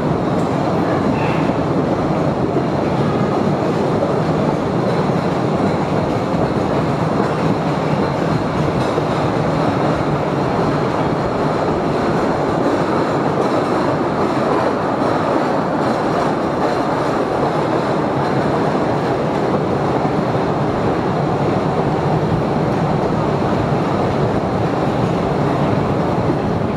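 Postojna Cave's open-carriage tourist train running through the cave: a steady noise of the wheels and cars on the rails, with no breaks.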